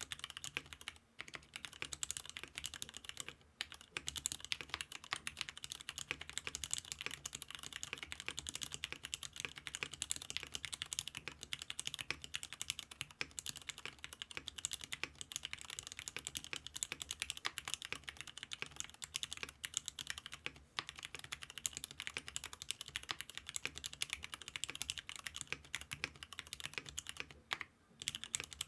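Continuous fast typing on a custom mechanical keyboard with Cherry Nixie switches fitted with 50 g springs, in an aluminium-cased GEON F1-8X 722 board on an aluminium leaf-spring plate with Poron foam. The keystrokes come as a dense stream of clicky-clacky taps, with a few short pauses.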